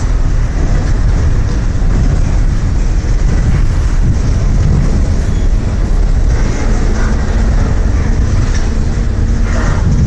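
Freight train cars, tank and covered hopper cars, rolling past with a steady, loud rumble of steel wheels on the rails as the train slows to a stop.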